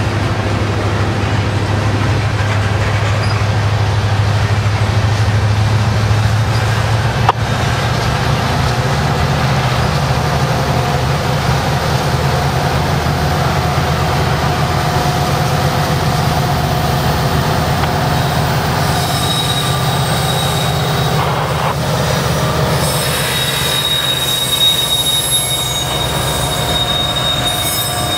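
Freight train of open hopper cars rolling by with a steady low rumble and one sharp knock about seven seconds in. From about two-thirds of the way through, high-pitched wheel squeal rings out as the trailing diesel locomotives draw near.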